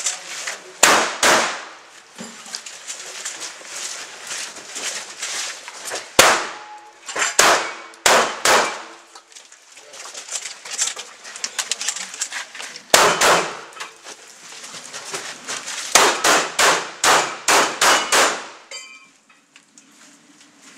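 Shotgun shots fired in quick groups while the shooter works through a practical-shooting stage: two early, several more a few seconds later, two more, then a fast string of about seven shots near the end. Each shot is a sharp crack.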